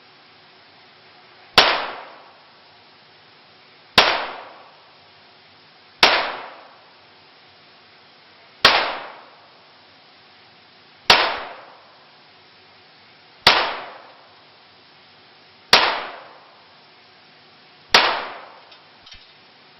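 Glock 17 9 mm pistol fired at a slow steady pace, eight single shots about two to two and a half seconds apart. Each shot rings out and dies away over about a second in the reverberant indoor range.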